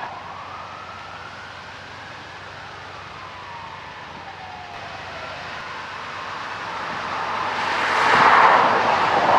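A distant siren wailing, its pitch sliding down and up, over the low sound of approaching diesel freight locomotives. From about seven seconds in, the locomotives working under throttle grow much louder as they draw near.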